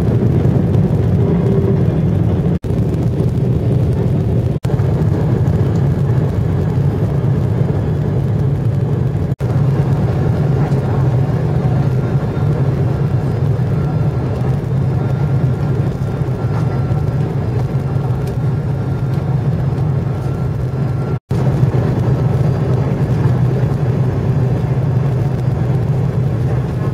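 Airliner cabin noise on final approach: a loud, steady low rumble of the jet engines and the airflow past the fuselage. It cuts out for an instant four times.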